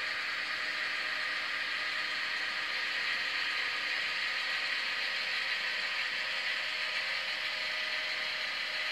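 HO-scale model freight train running past, with a steady, even whir as the covered hopper cars roll by on the track.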